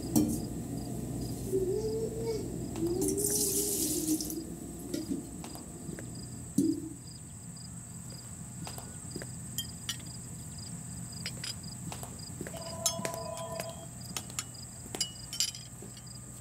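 Kitchen clatter from pots, lids and jars being handled at a gas stove: a sharp knock about six seconds in, then many small clinks and taps. Earlier there is a short wavering tone and a brief hiss.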